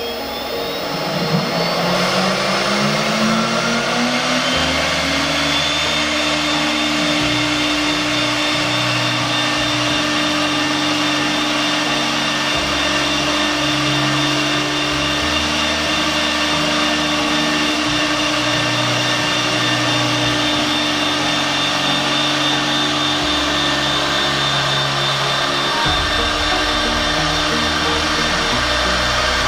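Two 24,000 rpm HSD spindles of a double-head CNC router whining up to speed in the first two seconds, then cutting grooves in 25 mm plywood at a 15 m/min feed: a steady high whine over the rushing noise of the bits in the wood.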